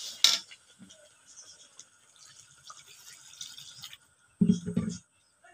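A flat metal spatula stirring a thin, watery tomato-spice masala in a metal kadai, a faint irregular scraping. About four and a half seconds in come two short, louder low thumps.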